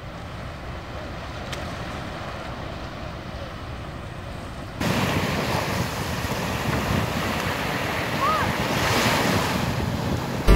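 Sea waves washing onto a beach, with wind buffeting the microphone; the sound jumps suddenly louder about halfway through.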